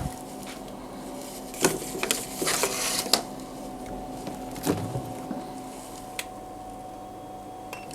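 Handling noises: a few scattered knocks and a brief rustle over a steady electrical hum. This is typical of a fridge being opened for a thermometer reading.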